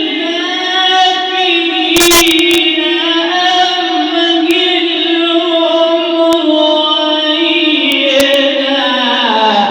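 A man reciting the Quran in the drawn-out melodic tajweed style, holding one long ornamented phrase without a break; the pitch dips at the end of the phrase. A few brief clicks come through, around two seconds in and near the end.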